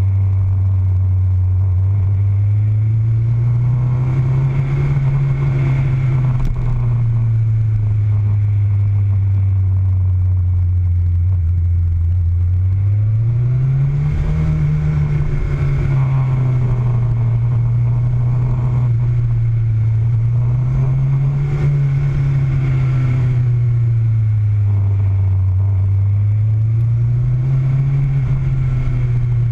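Motorcycle engine running under way, its note rising and falling several times as the throttle is opened and closed, with a steady drone in between.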